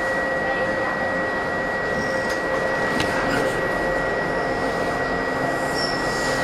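Steady hum of a 1983 Budd subway car's onboard equipment heard inside the car, with a constant high whine over an even noise. A couple of faint clicks come a little after two and three seconds in.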